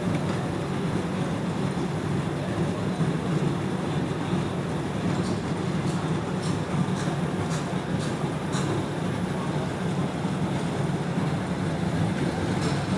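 Dishwasher running steadily, a low even hum with a rushing wash noise over it and a few faint ticks.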